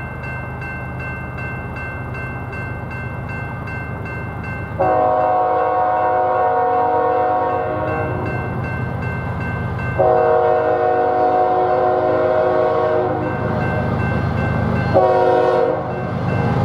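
Approaching train's locomotive horn sounding the grade-crossing signal, a chord of several notes: a long blast about five seconds in, a second long blast about ten seconds in, then a short one near the end. Beneath it the crossing's warning bells ring steadily, along with the low rumble of the oncoming train.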